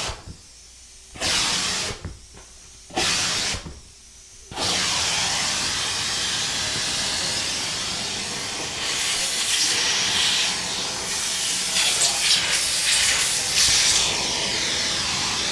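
Compressed air hissing as it blows dust out of a plasma TV's cooling fans: three short blasts about a second each, then a long continuous blast from about four and a half seconds in.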